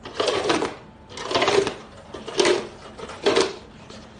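Clear plastic cups clattering and rattling as they are set into a stacked cup pyramid, in short bursts about once a second.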